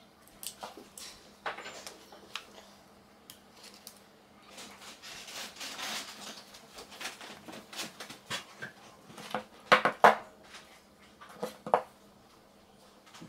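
Small metallic clicks from snap-setting pliers and a metal snap fastener being fitted to a neoprene waistband and snapped together, with neoprene fabric rustling in between. The loudest clicks come a little past the middle and again shortly after.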